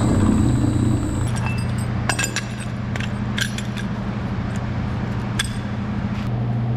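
Several light metallic clinks and scrapes of hose couplings being handled, scattered over a few seconds, over a steady low engine hum. Background music fades out about a second in.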